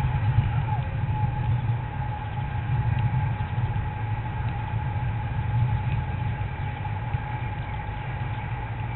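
A steady low rumble with a faint constant whine above it.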